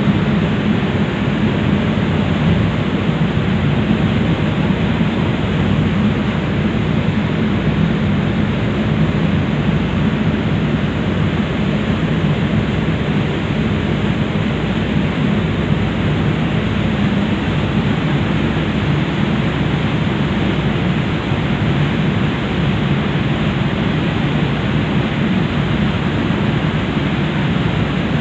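Passenger ferry under way: a steady engine drone mixed with the rush of wind and water past the open deck, unchanging throughout.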